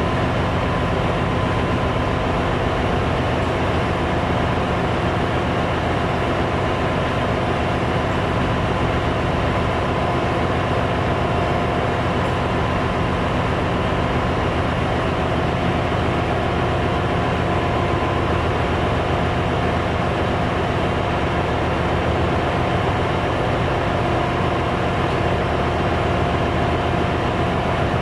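Ship's engine-room machinery running: a steady, loud drone with a couple of faint, steady whining tones that never change. The main diesel engine is stopped with its crankcase open, so the drone comes from the other machinery in the engine room.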